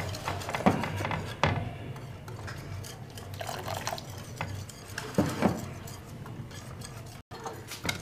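Wire whisk beating a thin semolina and gram-flour batter in a bowl, its wires clicking and scraping irregularly against the bowl's side. Water is poured into the batter from a plastic measuring cup about halfway through.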